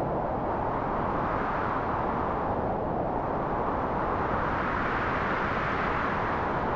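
Strong wind blowing in gusts, a steady loud rush that swells and eases, dipping about three seconds in and rising to a higher, stronger gust near the end.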